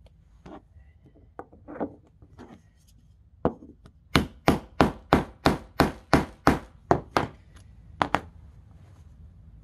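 Wooden mallet striking a metal grommet-setting tool to set a grommet through fabric: a single tap, then a run of about ten even strikes at roughly three a second, and a quick double strike near the end. Light clicks of grommet parts being handled come before the strikes.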